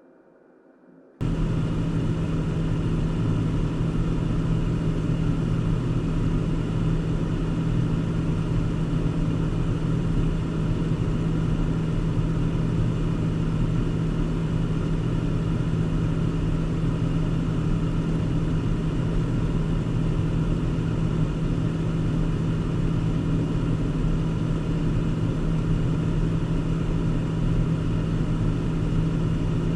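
Car driving at a steady speed: a constant engine drone and road noise that cut in abruptly about a second in.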